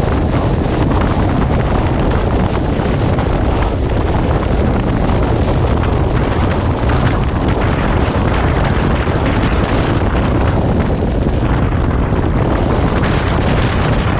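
Steady wind rush on the microphone of a motorcycle riding at road speed, with the bike's running drone underneath.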